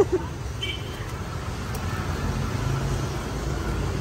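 Steady rumble of passing street traffic, with a brief high-pitched tone about half a second in.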